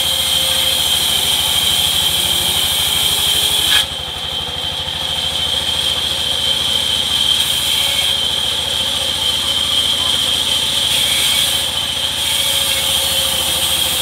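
Sawmill band saw running with a steady high whine, its blade cutting through a rain tree plank with a hiss. The cutting hiss ends with a sharp knock about four seconds in, and the saw runs on, with short stretches of hiss returning later.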